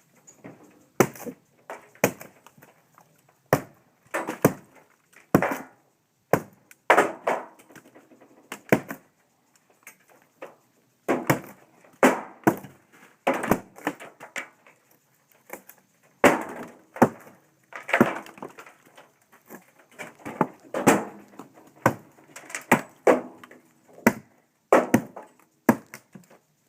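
Rotted log wood being broken apart: irregular sharp cracks and short crunching, splintering sounds, one or two a second with brief pauses.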